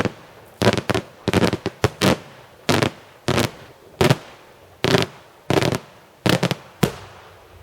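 Daytime fireworks display: a rapid, uneven run of loud bangs, about two a second and some in quick doubles, each with a short echoing tail. The bangs stop near the end.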